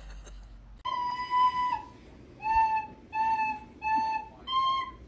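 A high, whistle-like tone: one long note about a second in, then a string of short notes of nearly the same pitch, about one every two-thirds of a second.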